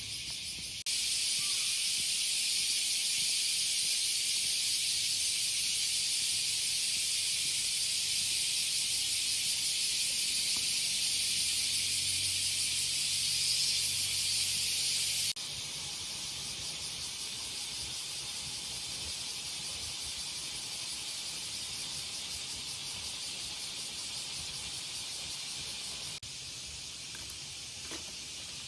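Dense chorus of summer cicadas, a steady high-pitched buzzing hiss. It jumps louder about a second in, drops back about halfway through, and drops slightly again near the end.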